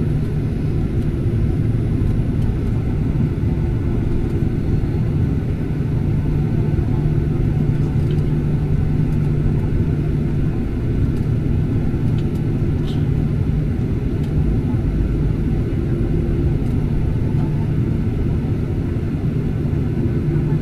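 Steady low rumble and hum inside the cabin of a Boeing 737-800 taxiing, its CFM56-7B turbofan engines at low taxi power.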